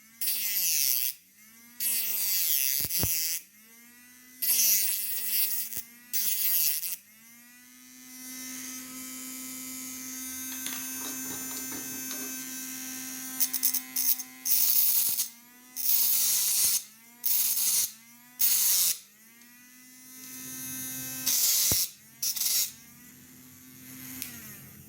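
Small battery-powered DC motor mini grinder with a sandpaper disc, switched on and off over and over. It whines up to speed with a loud hiss in bursts of about a second. Between bursts it coasts down in pitch, and there is one longer steady run in the middle.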